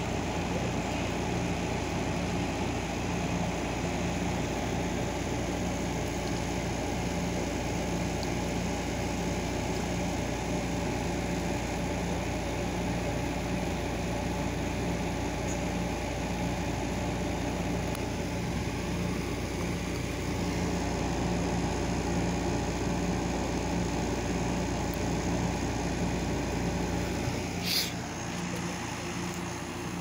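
2017 GE 5,050 BTU window air conditioner running: steady fan air noise over a hum with several steady tones. Near the end there is a click and the deepest part of the hum drops away.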